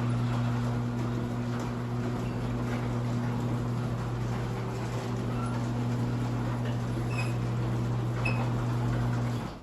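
Chain-drive garage door opener running steadily with a low motor hum as it raises the door, then stopping near the end as the door reaches its up limit.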